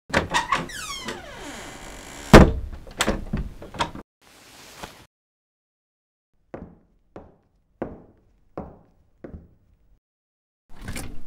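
A clatter of knocks and thuds with falling, sliding tones and one loud thump about two and a half seconds in. After a pause come about six even footsteps on a hard floor, a little over half a second apart, and a brief rattling noise near the end.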